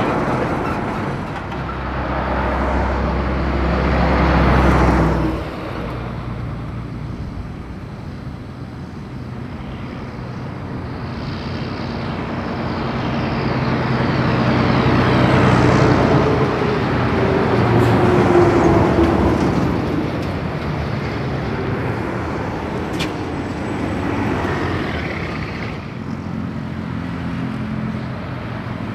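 Heavy lorries and other traffic passing on a highway. Diesel engines and tyres swell as each vehicle approaches and fade as it goes by. The loudest passes are a lorry right at the start and another that peaks in the middle with a falling pitch.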